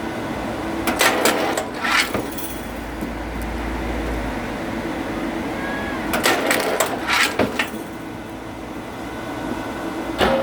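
Oak firewood being split: sharp cracks and knocks come in three clusters, about a second in, around six to seven and a half seconds, and near the end, over a steady machine hum.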